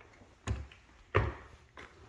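Two heavy thumps about 0.7 s apart, the second the louder, then a fainter knock near the end.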